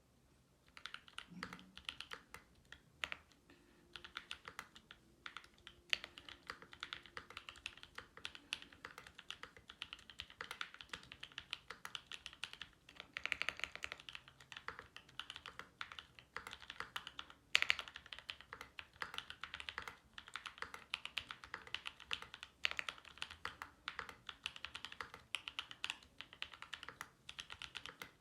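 Continuous typing on a Mode Eighty mechanical keyboard with Gazzew U4T Boba tactile switches (68 g, lubed with Krytox 205g0, Durock films) on a POM plate. Irregular keystrokes begin about a second in, with one sharper, louder stroke past the middle.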